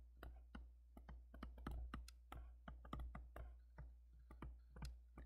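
Faint, quick, irregular clicks and taps of a stylus on a tablet or pen-display surface while handwriting, several a second, over a steady low hum.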